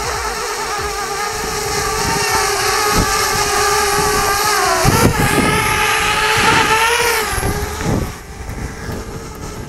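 Parrot Bebop quadcopter's propellers whining, the pitch wavering as the motors change speed; the whine grows louder in the middle and drops off sharply about eight seconds in.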